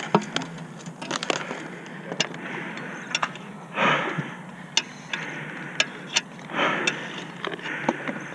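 Armoured sword-and-shield sparring: sharp, irregular knocks of weapons striking a wooden shield and armour, about one a second, with short bursts of hissing, scuffing noise between the blows.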